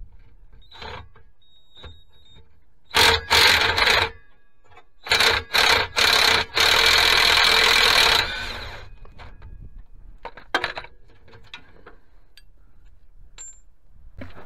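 Cordless impact wrench hammering in short bursts on the exhaust fixings under the car: two bursts about three seconds in, three quick ones just after five seconds, then one longer burst of about a second and a half. Faint clicks of handling tools and parts come between them.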